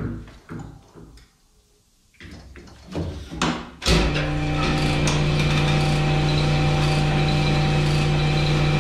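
A few knocks and clicks of the hone head being set into the cylinder, then about four seconds in the cylinder honing machine starts and runs steadily with a strong low hum and a hiss, honing a bore of the LS engine block with stones in oil.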